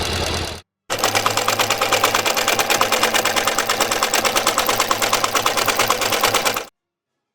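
A small mechanism clattering rapidly and evenly for about six seconds, starting just after a brief steady hum and a short gap, then stopping abruptly.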